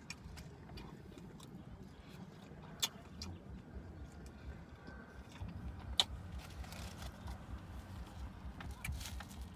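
Faint eating sounds of someone chewing chicken wings, with a low pulsing rumble that grows denser about halfway through and two sharp mouth clicks, about three and six seconds in.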